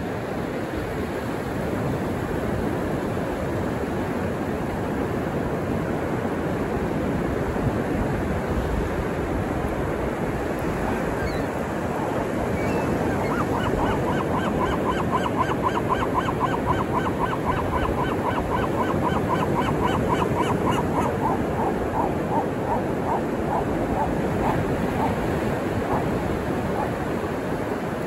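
Ocean waves washing steadily on the beach. About halfway through, a gull gives a fast run of repeated squawking calls that then slow and fade away.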